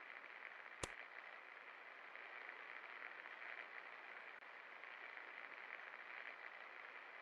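56-inch ceiling fan running, a faint steady whoosh of moving air, with a single sharp click about a second in.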